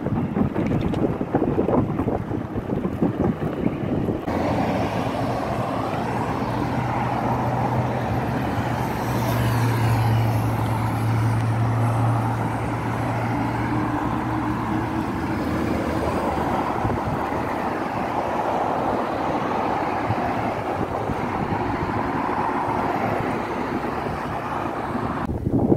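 Wind buffeting the microphone of a camera on a moving bicycle, with road traffic passing on the road alongside. The sound changes abruptly about four seconds in, and a low steady drone runs through the middle stretch.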